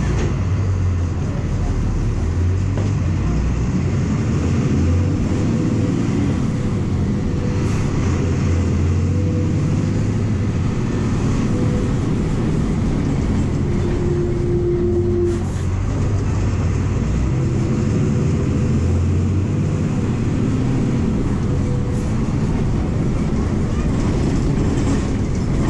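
Heard from inside a VW 17.230 EOD bus on the move: its MWM 6.12 TCE six-cylinder turbodiesel runs under way with road and body noise. The engine note swells and eases several times as the bus drives, and a short steady whine sounds about halfway through.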